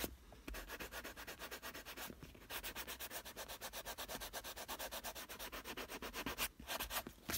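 Hand sanding with 80-grit sandpaper on a small block, rubbed quickly back and forth over dried filler in a car seat's synthetic-leather upholstery, at about six strokes a second, with two short breaks. It is the coarse levelling stage of the repair, done before finer paper and primer.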